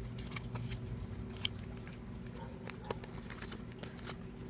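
Scattered small clicks and crackles of plastic cosmetics packaging being handled and opened, over a steady low hum.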